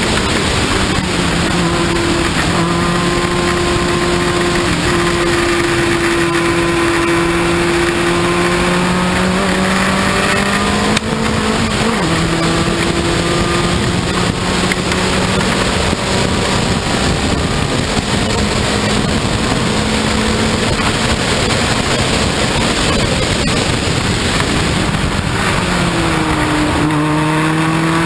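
Open-cockpit prototype race car's engine heard onboard at speed, its note held fairly high with a sharp break about eleven seconds in, then falling and climbing again near the end, under a heavy rush of noise.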